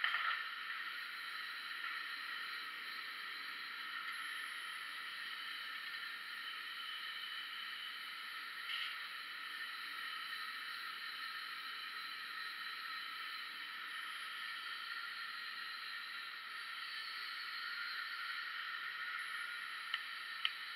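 Forge burner running with a steady hiss while a workpiece heats in it; a couple of sharp clicks near the end.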